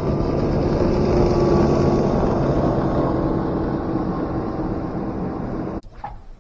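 Outboard motor of a passing bass boat running steadily, swelling about a second in and then slowly fading. The sound cuts off abruptly near the end, leaving a couple of faint clicks.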